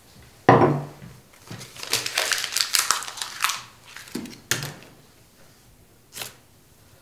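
Handling noises: a sharp knock about half a second in, then about two seconds of crinkling and rustling, a second knock, and a light click near the end.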